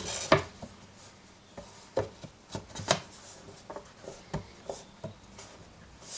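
Hands working on a homemade wooden drum carder: irregular clicks and knocks of wood and metal parts being handled and fitted, the sharpest just after the start and around three seconds in.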